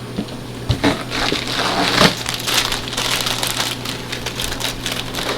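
Plastic snack bags crinkling and rustling as they are handled and loaded into a vending machine, with a few sharper crackles and knocks about a second and two seconds in.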